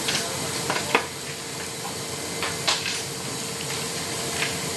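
Steady hiss of jet aircraft noise with a faint steady hum, broken by a few short clicks, the sharpest about a second in.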